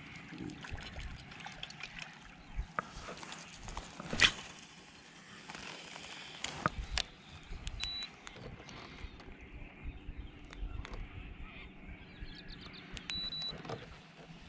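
Quiet lakeside ambience with birds calling, broken by a few sharp clicks, the loudest about four seconds in.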